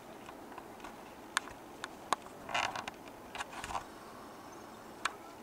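Handling noise from a handheld camera: a few sharp clicks and two short bursts of rustling and scraping over a quiet outdoor background.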